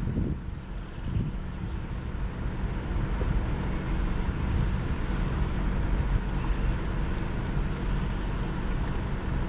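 Low, steady rumble of wind buffeting the camera's built-in microphone, with a hiss of forest air above it.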